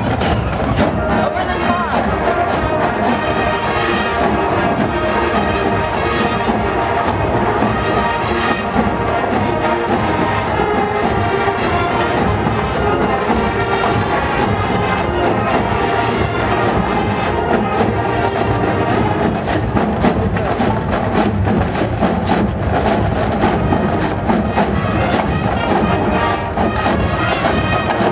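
Massed high school marching bands, brass and percussion, playing together with a steady drum beat.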